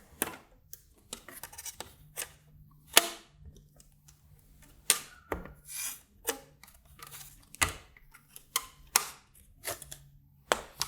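Irregular clicks, taps and knocks of small hardware being handled on a workbench: plastic and metal toggle switches, screws and an acrylic mounting plate being adjusted by hand. The loudest knocks come about three and about seven and a half seconds in.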